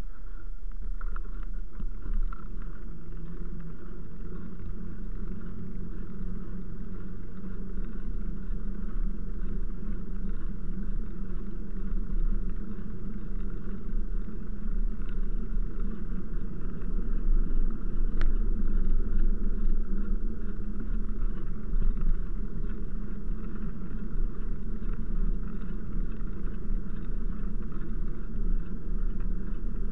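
Steady low rumble of wind buffeting the microphone and bicycle tyres rolling on a wet tarmac path, with a few light clicks and rattles from the bike.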